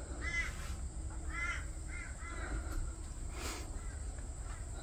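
A crow cawing four times in quick succession, each call short and arching in pitch, over a steady low rumble.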